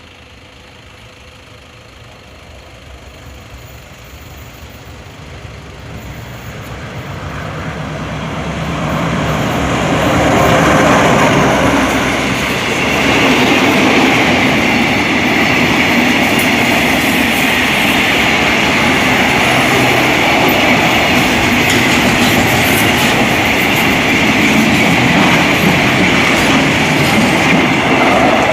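A diesel train approaching along the track, growing steadily louder over the first ten seconds, then passing close by with continuous wheel-on-rail clatter and rumble.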